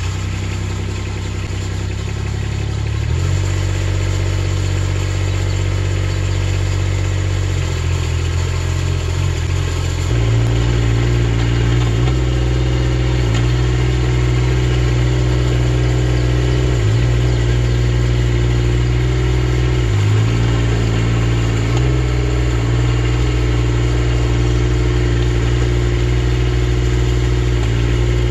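Engine of a Skylift Mini-Derrick tracked digger derrick running steadily as the machine creeps on its tracks at slow travel speed. It steps up in speed about three seconds in and again about ten seconds in, with brief dips later on.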